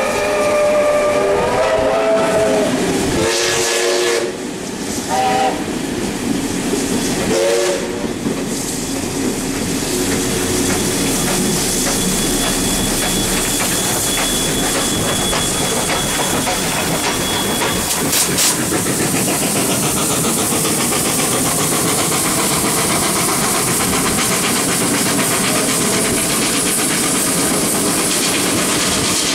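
Steam locomotive whistles: one long chord blast, then several short blasts over the first eight seconds. After that comes the steady running noise of steam trains at speed, heard from aboard one of them, with steam hiss and, mid-way, a thin high whine lasting several seconds.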